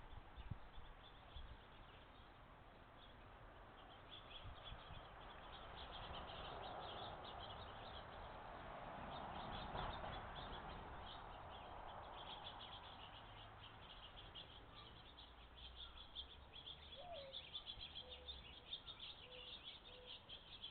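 Faint, rapid high-pitched chirping of small birds at a feeder, starting about four seconds in and continuing throughout. A soft rushing noise swells and fades in the middle.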